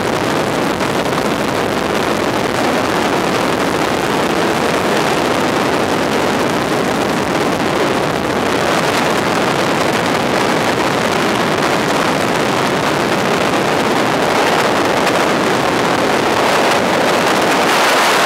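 Cabin noise of a 1956 de Havilland Beaver floatplane in cruising flight: its Pratt & Whitney R-985 radial engine and propeller with rushing wind make a loud, steady drone that grows a little louder in the last few seconds.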